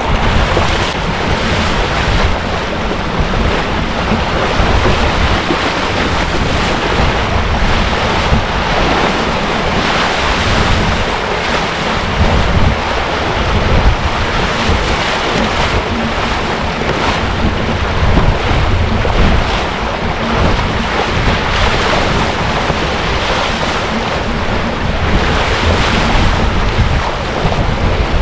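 Wind buffeting the microphone over water rushing and splashing, from a small sailing dinghy under way. The noise is loud and steady, with gusts coming and going.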